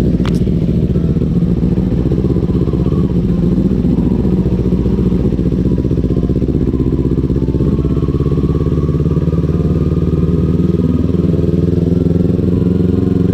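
Kawasaki Ninja 400's parallel-twin engine running steadily at low revs, with a short click just after the start and a slight change in pitch a little before the end.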